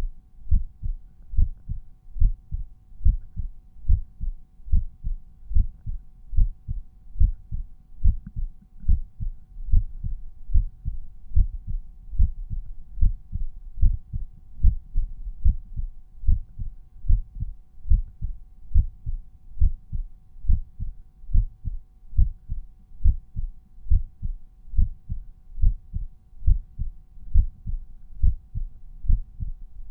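Resting human heartbeat auscultated at the mitral point: regular lub-dub beats, about one a second, heard as deep thumps.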